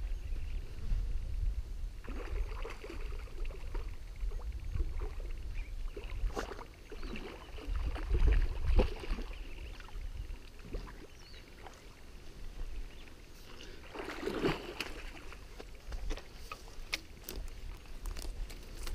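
Wind rumbling on the microphone, with irregular splashes and rustles as a hooked sharptooth catfish thrashes at the surface close to the bank. The strongest burst comes about two-thirds of the way through.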